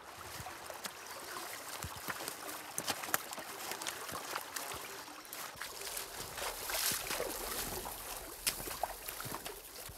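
Shallow stream running over rocks, with irregular splashes of boots wading through the water.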